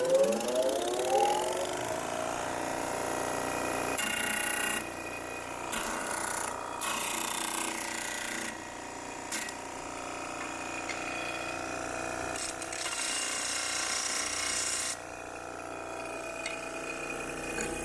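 Electric motor of a State D20 20-inch pedestal disc grinder/sander starting up, its hum rising in pitch for about two seconds as the disc spins up, then running steadily. Several stretches of hiss come and go over the steady hum.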